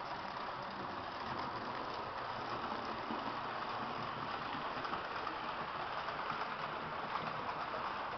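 Märklin H0 model trains running on the layout's metal track: a steady running noise of electric locomotive motors and wheels rolling over the rails.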